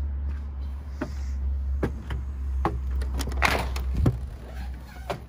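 Footsteps knocking on a wooden porch about once a second, then the front door's latch clicking and the door being pushed open with a brief scrape, over a steady low rumble.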